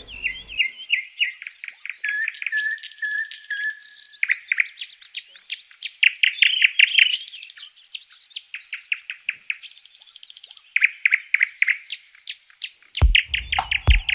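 Songbirds singing: a steady stream of quick chirps, repeated notes and short trills, with several phrases overlapping.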